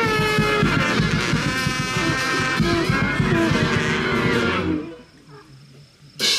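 Loud, dense music with sliding, bending notes over a heavy low end, which cuts off abruptly about five seconds in. A sudden loud crash with a ringing tail comes right at the end.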